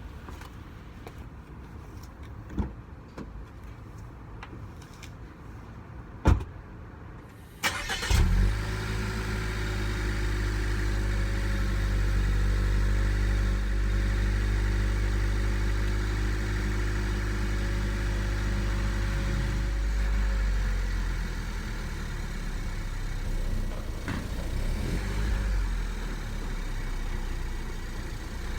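Two short knocks, then the Suzuki Swift Sport ZC33S's 1.4-litre turbocharged four-cylinder starts about eight seconds in and settles into a steady idle, heard from outside at the exhaust. Around twenty seconds in the idle steps down a little and gets slightly quieter.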